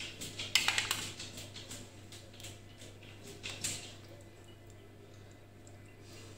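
A metal spoon clicking and scraping against a bowl and over pizza dough as tomato sauce is scooped and spread in a baking tray: a cluster of quick clicks in the first second, a few more about three and a half seconds in, then only faint spreading sounds over a steady low hum.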